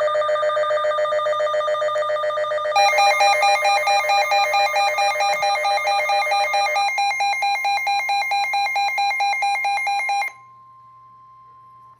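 Electronic emergency alert tone for a flash flood warning: rapid pulsing beeps that step to a new pitch about three seconds in and again about seven seconds in. It stops abruptly after about ten seconds, leaving a faint steady tone.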